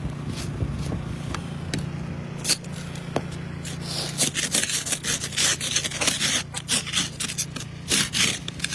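Ice scraper scraping ice and snow off a car windshield in short repeated strokes, coming quicker and louder about halfway through. A steady low hum runs underneath.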